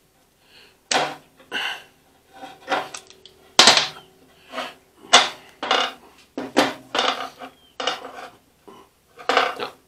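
Pliers and a frost-free hydrant's steel stem rod clinking and clacking while the new plunger head's brass fitting is tightened onto the stem by hand. A run of irregular metallic clicks and knocks, the loudest a few seconds in.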